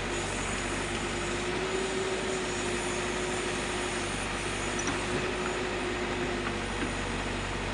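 Backhoe loader's diesel engine running steadily while digging, with a steady whine running over the engine hum.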